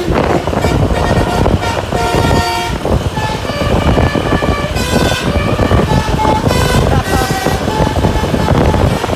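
Bus telolet horn of the Basuri 'pianika' type playing a quick melody of short, changing notes, over the bus's engine and road noise.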